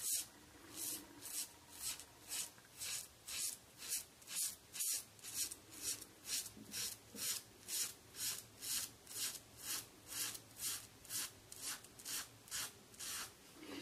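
Rockwell 6C safety razor scraping through three days of stubble on a lathered scalp. It goes in short, quick, faint strokes, about two or three a second, each one a rasping scratch.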